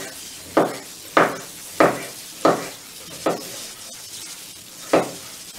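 Chef's knife chopping peeled zucchini into cubes on a wooden cutting board: six sharp chops about two-thirds of a second apart, with a longer pause before the last.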